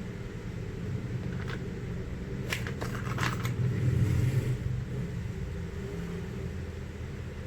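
Handling of a tool kit and its packaging: a few short clicks and a brief crackly rustle about a third of the way in, over a steady low hum.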